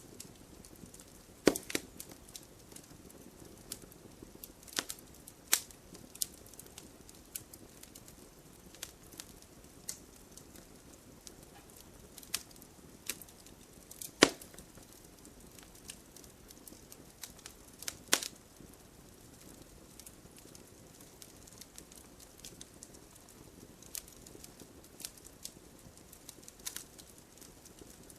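Logs burning in a fireplace, crackling with irregular sharp pops over a faint low hiss. A few pops stand out loud, about a second and a half in, near the middle and again a few seconds later.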